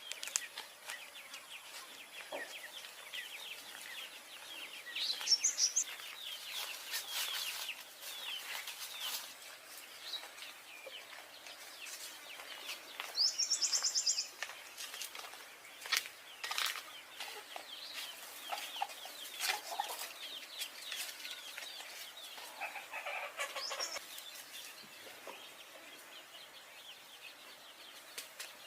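Birds calling, possibly fowl, with short rapid high trills recurring every several seconds and scattered clicks between them.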